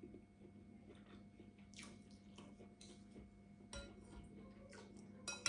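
Quiet eating sounds: faint chewing and mouth clicks over a steady low hum, with a metal spoon clinking against a glass bowl near the end.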